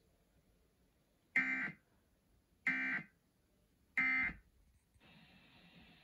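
Emergency Alert System end-of-message signal played through a television speaker: three short bursts of SAME digital data tones, evenly spaced about a second apart, marking the end of the alert. A faint steady background noise comes in about a second before the end.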